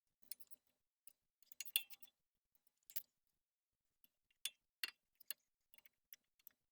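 Scattered faint clicks and ticks of a torque wrench tightening the brake caliper slide pin bolts to 31 foot-pounds, the loudest click just under two seconds in.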